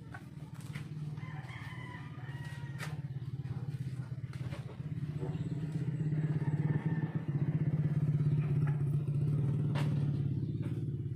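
A rooster crows in the first few seconds over a steady low motor hum with a fast, even pulse. The hum grows louder about halfway through.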